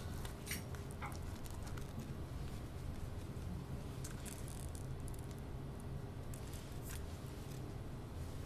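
Quiet room tone with a steady low hum and a few soft rustles and clicks from a large paper photobook being held and shifted in the hands.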